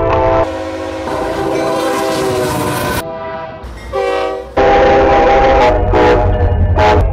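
Several different multi-note locomotive air horns sounding one after another, each cut off abruptly as the next begins, with the low rumble of passing diesel locomotives underneath in the second half.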